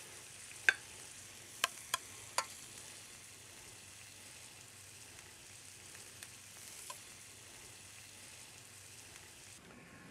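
Turkey kebabs sizzling on a stovetop grill in a steady faint hiss, with four sharp clinks of a spoon against a stainless steel bowl and plate in the first few seconds. The sizzle drops away near the end.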